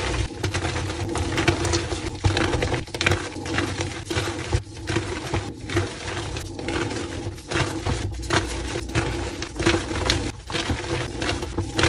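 Hands squeezing and crumbling blocks of dyed gym chalk into a heap of loose chalk powder: a dense, continuous stream of crunching and crumbly crackles.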